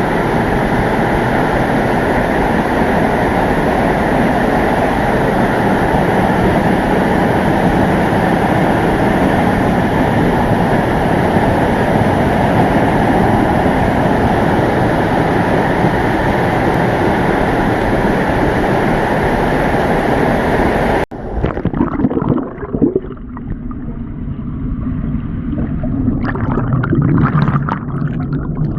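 Waterfall falling into a creek pool, a loud steady roar of water. About two-thirds of the way through it cuts off abruptly to muffled, uneven gurgling and sloshing of water.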